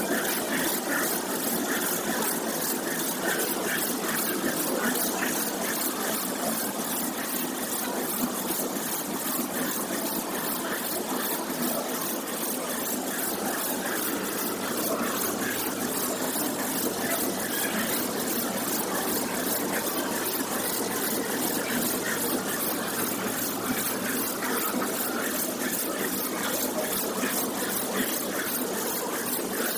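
Compressed-biscuit production and packing line running: conveyor belts and packing machinery make a steady mechanical noise with a fast, even ticking on top.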